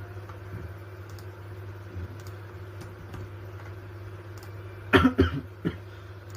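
A person coughing, a quick cluster of coughs about five seconds in and one more shortly after, over a steady low hum and faint clicks.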